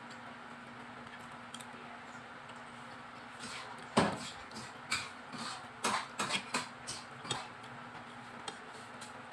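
Spoon and fork clinking and scraping against a plate of food: a quick run of clinks and knocks starting about four seconds in and lasting some three seconds, the first the loudest.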